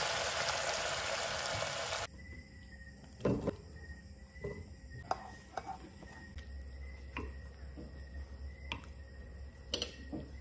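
Thick sauce of braised meat bubbling in a pot on the stove, loud and steady. About two seconds in it cuts off suddenly to scattered light clinks and knocks of the pot and utensils against dishes, over a faint steady high tone.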